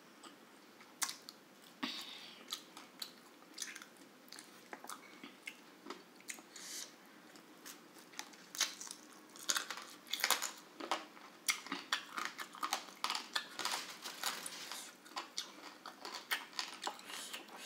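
Close-up mouth sounds of a person eating grilled chicken with her hands: chewing and biting, heard as many short clicks that come thicker in the second half.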